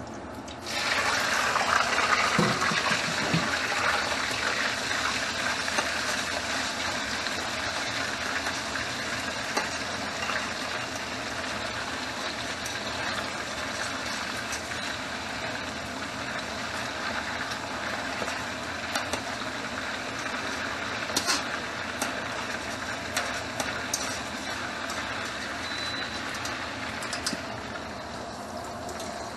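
Slices of pork dropped into hot oil in a wok, sizzling loudly at once and settling into a steady hiss of frying that eases slightly. A few light clicks later on.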